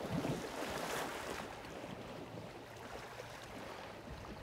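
Water splashing and sloshing as an African elephant moves about in a waterhole, busiest in the first second or so and then settling to a gentle wash, with wind on the microphone.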